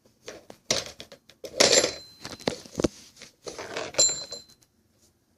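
Clattering handling noise: a string of irregular knocks and rustles, with a brief high ringing tone twice.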